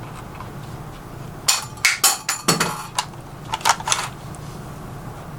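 A run of sharp metallic clacks and clicks from an IWI Tavor bullpup rifle being handled as it is checked unloaded and its chamber cleared. There are four clacks between about one and a half and two and a half seconds in, and two more near four seconds, over a faint low hum.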